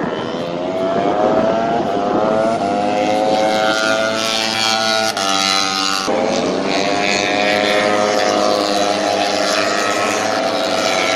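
Racing motorcycle engines at full throttle on the circuit, several at once, revving up through the gears: rising engine notes with sharp breaks at the upshifts about five and six seconds in.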